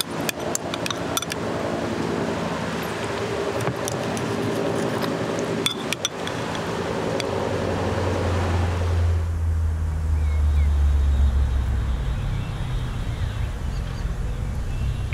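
A metal spoon clinking against a ceramic bowl several times, over a steady low rumble that swells about eight seconds in.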